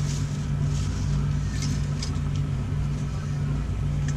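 A steady low mechanical hum, with a few short light clicks about one and a half to two and a half seconds in and again near the end.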